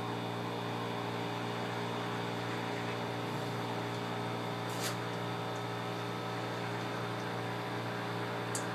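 Steady electrical hum with a stack of evenly spaced tones that never changes in pitch or loudness, with two faint clicks: one about five seconds in and one near the end.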